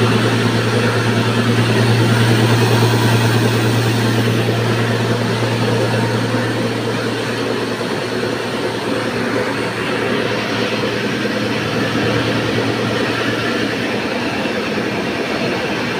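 Electric stone flour mill (atta chakki) running and grinding grain: a loud, steady motor hum under a dense grinding rattle.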